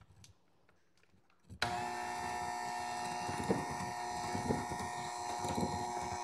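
Electric hand mixer switched on about a second and a half in, its motor running with a steady whine as the beaters whisk eggs and sugar in a glass bowl, with a few knocks along the way.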